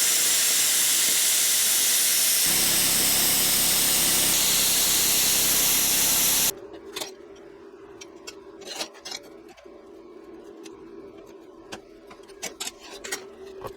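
Plasma cutter cutting steel frame plate: a loud, steady hiss of air, with a lower buzz added about two and a half seconds in as the cut runs. It cuts off suddenly about six and a half seconds in, leaving a quiet steady hum and scattered clicks and taps.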